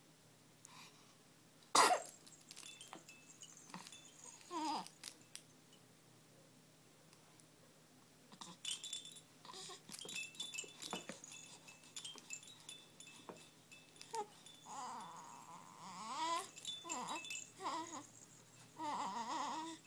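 Dangling toys on a baby's activity play gym jingling and chiming as the infant bats and kicks at them, with a sharp click about two seconds in. The baby coos and babbles softly in the second half.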